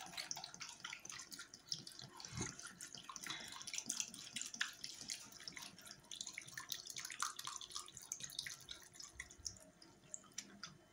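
Water poured from a plastic bottle into an enamel pot of cut raw potatoes: a continuous splashing trickle as the pot fills, stopping near the end.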